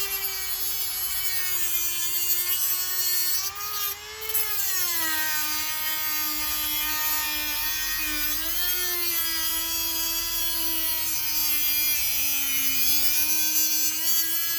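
Dremel rotary tool grinding through a steel Master Lock padlock: a steady high-pitched whine whose pitch sags and recovers as the tool loads against the metal, with a brief drop in level about four seconds in.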